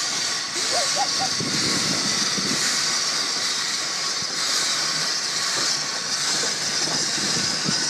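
Small Andrew Barclay 0-4-0 saddle-tank steam locomotive pulling away with a coach, steam from its open cylinder drain cocks hissing loudly and steadily, swelling about once a second, over the low rumble of the moving train.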